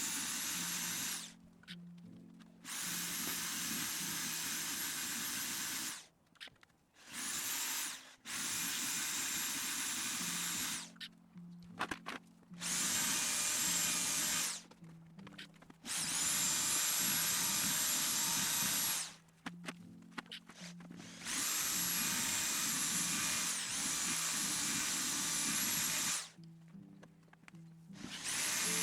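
Power tool, such as a drill, running in about seven bursts of one to five seconds each with short pauses between, each burst carrying a steady high whine. Background music with low sustained notes plays under it.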